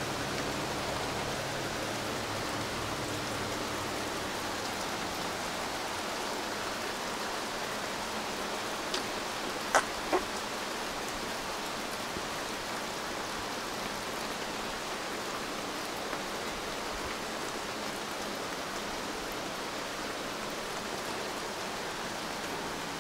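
Steady rain falling on the forest canopy and undergrowth, heard from under a rock overhang. Two or three sharp taps stand out about ten seconds in.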